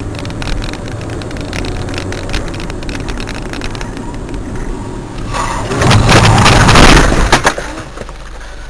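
Road and engine noise heard from inside a moving car, with light rattling clicks. About five seconds in, a multi-car highway collision just ahead: a loud rush of crashing noise lasting about two seconds, ending in several sharp bangs, after which only a lower, steadier noise remains.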